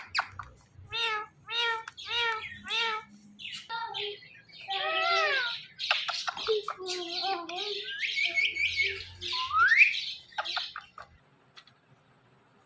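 Indian ringneck parrot squawking and calling in a run of short pitched notes: a quick series of repeated calls early on, a longer bending call about five seconds in, and a rising whistle near ten seconds. The calls stop about a second before the end.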